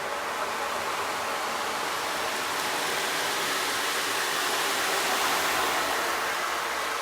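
Rushing water from a relaxation soundscape: a steady hiss of flowing water that swells a little in the middle and eases near the end.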